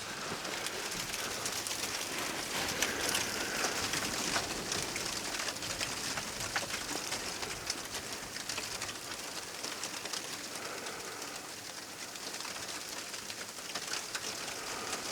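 Wind-driven snow pelting a surface close to the microphone: a steady hiss laced with fine, continuous ticking.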